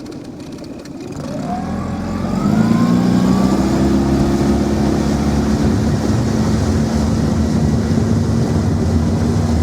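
Mercury 20 EFI four-stroke outboard motor throttled up from idle in gear, its pitch rising over about two seconds, then running steadily at speed as the inflatable boat climbs onto the plane.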